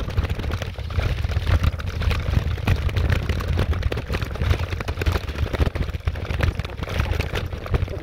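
Wind buffeting the microphone of a camera on a moving bicycle: a heavy low rumble with constant irregular crackle.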